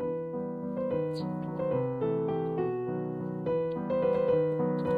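Background music: a gentle piano melody with steady chords beneath.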